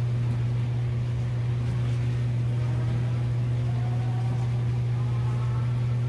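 A steady low hum at an even level, with faint sliding tones above it.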